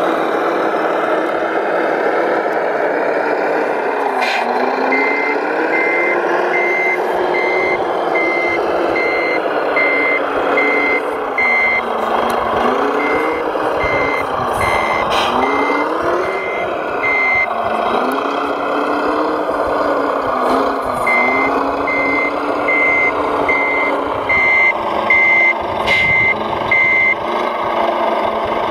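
RC Liebherr LRT 1100-2.1 crane model's reversing alarm beeping, about two beeps a second in three runs, over the steady drive and engine sound of the model, which rises and falls in pitch as it manoeuvres.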